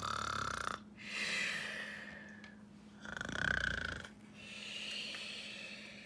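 Mock snoring by a person: two rattly snores, each followed by a long breathy exhale.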